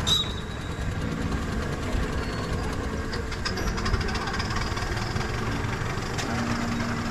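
Miniature steam traction engines running as they drive past in a parade, one coming close. A brief sharp click right at the start.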